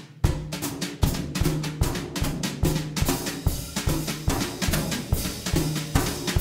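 Background music with a steady drum-kit beat (kick, snare and hi-hat) over a bass line, the full kit coming in just after the start.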